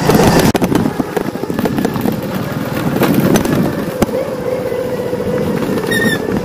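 Small motorbike running along a rough dirt track, its engine note steady under a rumble of wind and tyre noise, with irregular sharp clicks and knocks from stones and bumps. A brief high chirp about six seconds in.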